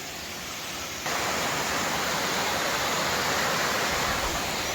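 Waterfall rushing, a steady noise of falling water that jumps suddenly louder about a second in.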